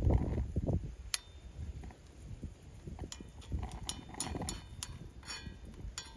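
Chestnut-wood campfire crackling, with sharp pops scattered irregularly over a low rumble.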